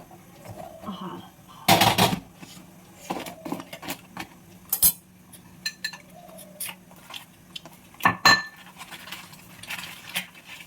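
Plates and cutlery clinking and clattering as a meal is served and eaten, with a loud clatter about two seconds in and sharp ringing clinks around eight seconds in.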